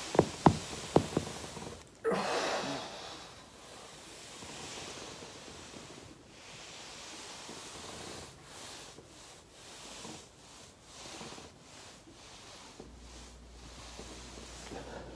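A quick run of about five sharp cracks in the first second or so: spinal joints popping as the back rolls over a foam roller. About two seconds in comes a sudden hiss-like burst that fades over a second or so, followed by soft rustling.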